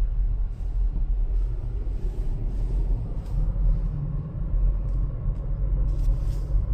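Car driving slowly on snowy city streets, heard from inside the cabin: a steady low rumble of engine and tyres.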